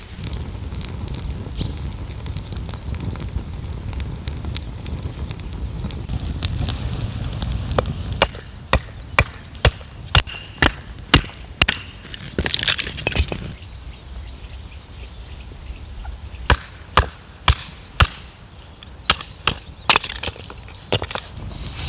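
Repeated sharp strikes on wood, about two a second, in runs with short pauses, starting about a third of the way in, after a low rumbling noise. Birds chirp faintly.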